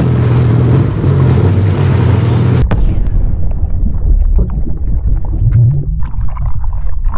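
A personal watercraft's engine running steadily over churning water, cut off abruptly about two and a half seconds in. It is followed by a logo-intro sound effect: a deep rumble with scattered crackles.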